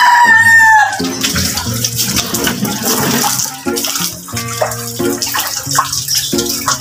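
Water from a garden hose spraying and splashing onto a motorcycle's seat and top box, a steady hiss. It opens with a short, loud falling tone, and background music with steady notes plays under the spray after about a second.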